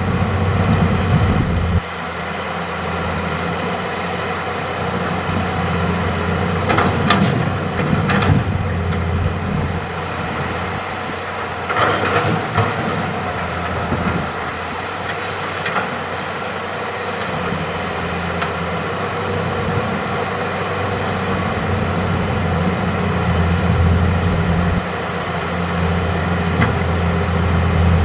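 Hitachi hydraulic excavator's diesel engine running steadily under working load, easing off about two seconds in and picking up again near the end. A few clanks of rock against steel come through over the engine, about a quarter of the way through and again near the middle, from the bucket digging and loading rock.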